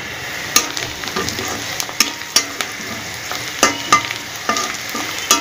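Sliced onions, green chillies and garlic sizzling in hot oil in a metal karahi, the onion base of a chicken curry, while a spatula stirs them, scraping and knocking against the pan a few times a second at irregular intervals.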